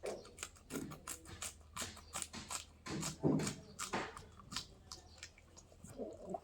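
A person chewing and smacking their lips while eating: a quick, irregular run of wet clicks and smacks.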